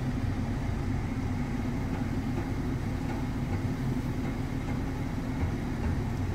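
Low, steady rumble inside a car cabin, with most of the sound in the bass and little above it.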